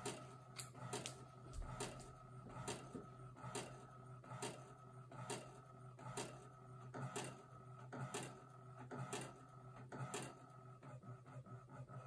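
Inkjet printer printing a sheet of sticker paper in high-quality photo mode, faint: the print head clatters at the end of each pass about once a second, over a steady motor whine.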